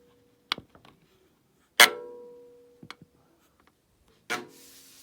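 Electronic alert chime from a GE front-load washer's control panel: the same bell-like note strikes twice, about two and a half seconds apart, each with a sharp start and a slow fade. A few short clicks fall between the chimes.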